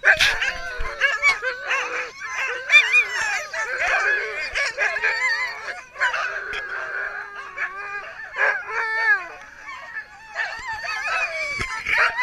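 A team of harnessed Alaskan huskies barking, yelping and howling together in an overlapping chorus, the excited noise of sled dogs straining to go.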